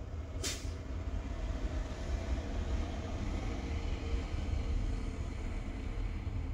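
Steady low rumble of a vehicle, with a short soft noise about half a second in.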